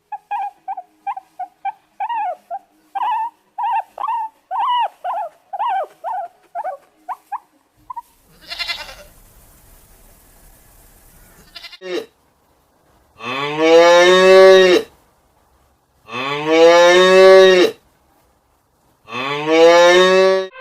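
A cow mooing three times in long, loud calls, each rising and then falling in pitch, about two to three seconds apart in the second half. Before them comes a run of quieter, short, high squeaky calls, about two a second, from an animal that cannot be told.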